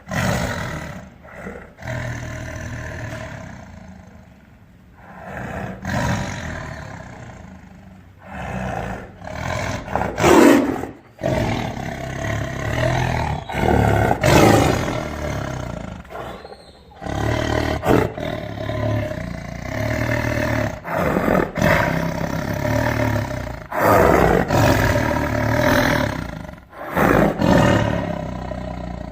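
Tiger roaring repeatedly: a series of loud calls lasting a few seconds each, with short gaps between them.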